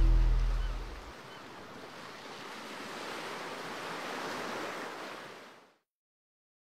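Waves washing, a soft even rush that swells a little and then cuts off abruptly about a second before the end, with the tail of background music fading out in the first second.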